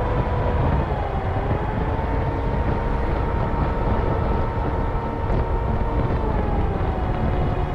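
Motorbike engine running under way, heard from the rider's position, with a steady whine that dips slightly in pitch about a second in and again near the end as the bike eases off. Wind and road rumble lie under the whine.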